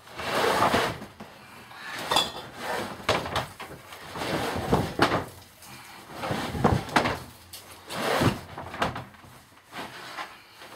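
A large stiff sheet draped over a wooden bin being lifted and dropped back several times, rustling and flapping with knocks against the wood.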